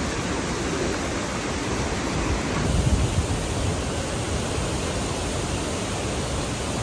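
Waterfall pouring steadily, an unbroken rush of falling water, with a brief low rumble swelling a little under halfway through.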